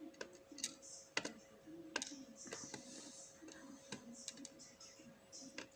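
Irregular light clicks and taps of small metal lock parts being handled, with a faint steady hum underneath.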